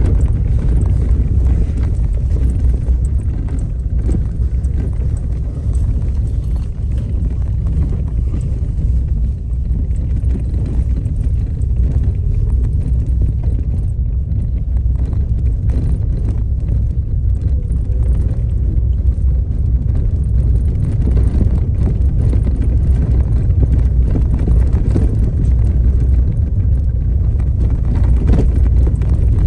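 A vehicle driving over a rough gravel road: a steady low rumble of engine and tyres, with small knocks and ticks from stones throughout.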